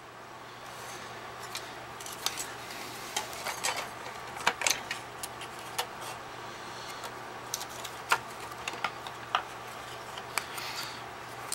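Plastic housing and circuit board of a Respironics sleep apnea machine being handled during disassembly: scattered light clicks and knocks of plastic and board, over a faint steady hum.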